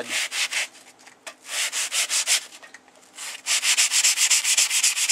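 Coarse foam sanding block rubbed back and forth along a rusty steel bow saw blade, dry-sanding off the rust. A few strokes with short pauses, then quicker, even strokes from about three and a half seconds in.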